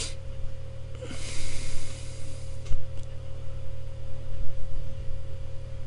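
Steady low electrical hum and microphone noise with a thin steady tone above it, a soft rush of noise about a second in, and a few faint clicks.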